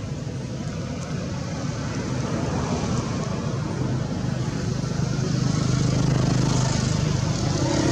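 A motor vehicle engine running with a steady low hum, growing louder in the second half.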